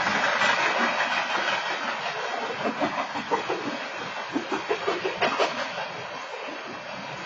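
Freight train's covered hopper cars rolling past, a steady rumble of wheels on rail that gradually fades, with a run of sharp wheel clacks a few seconds in. Heard through a security camera's microphone.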